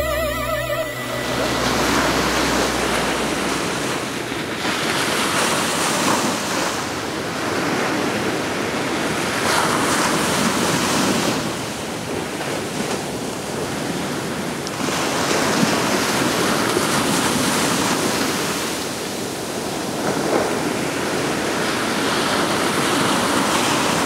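A loud rushing noise without any tones, swelling and easing every few seconds, after the last notes of the music stop about a second in.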